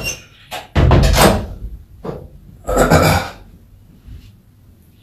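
Two loud, dull thumps with a rustle, about a second in and about three seconds in, with a few short clicks before them.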